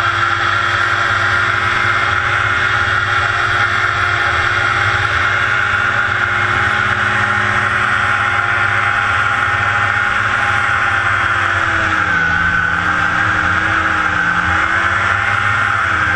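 Small hovercraft's engine and propeller fan running steadily under power, with a strong rushing fan noise over the engine note. About three-quarters of the way through the engine note drops a little and wavers as the throttle eases.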